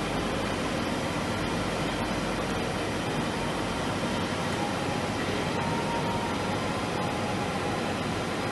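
Steady hum and hiss of running machinery, with a few faint steady tones and occasional light ticks.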